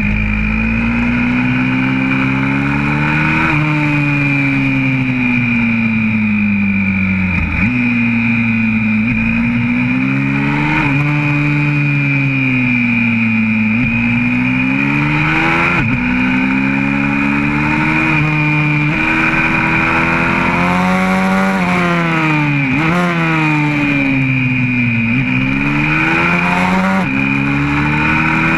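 YCF 125cc single-cylinder four-stroke pit bike engine heard onboard at racing pace, revving hard and loud. Its pitch climbs through each gear, drops sharply at every upshift, and sinks more slowly as the throttle is closed for corners, over and over.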